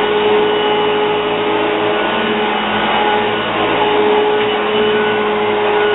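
Hoover Junior upright vacuum cleaner running: a steady motor whine at one held pitch over a wash of rushing air, unchanging throughout.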